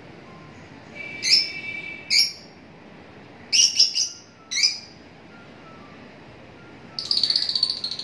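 Caged lutino peach-faced lovebirds calling: short, shrill chirps, some in quick succession, then a longer rapid chattering call about seven seconds in.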